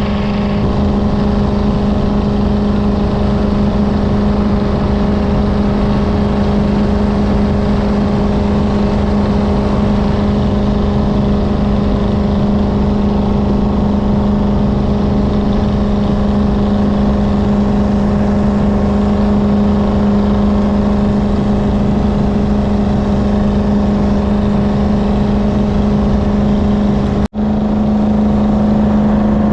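Jet boat's engine running steadily at a constant pitch, with rushing noise over it. The sound drops out for an instant about 27 seconds in.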